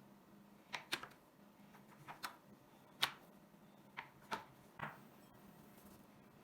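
Light clicks and taps of utensils in kitchen work, about eight in an irregular run, the sharpest about three seconds in.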